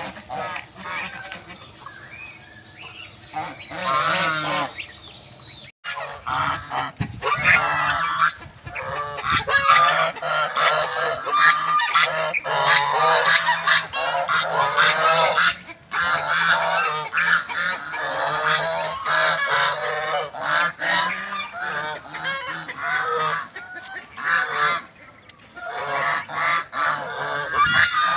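A flock of domestic geese honking, with many overlapping calls. The calls are sparse for the first few seconds, then break off briefly, then become a dense, loud chorus of honks.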